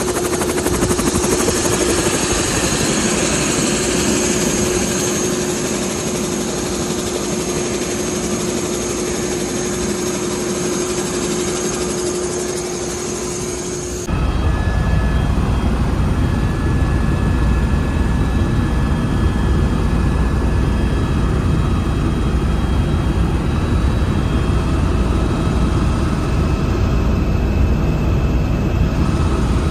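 Helicopter running: a steady turbine whine with rotor noise, then about halfway through a sudden change to the heavy, steady low rumble heard inside the cabin in flight.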